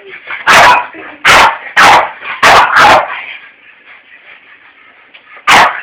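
A dog barking in loud, sharp, excited bursts: five barks in quick succession over the first three seconds, then one more near the end.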